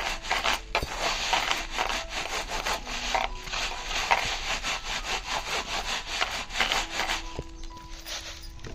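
A hand scrubbing raw green finger millet grains against a woven bamboo tray: a continuous gritty scratching of quick back-and-forth strokes that eases off near the end.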